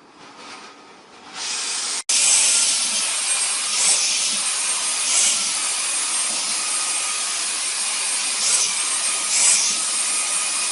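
A vacuum cleaner running with a steady loud rush of air, swelling briefly now and then as the nozzle moves.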